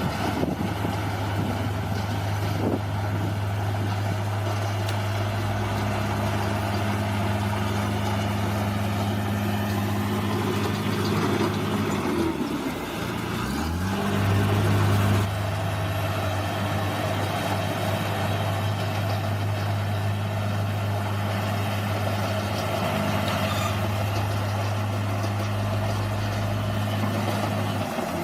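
Bulldozer's diesel engine running steadily. About halfway through, its pitch sags and wavers for a couple of seconds, then picks up again, briefly louder.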